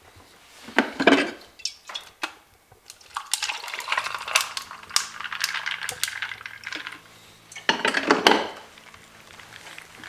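Coffee poured from a glass carafe into a cup for a few seconds, with clinks and knocks of glassware and the cup about a second in and again near eight seconds.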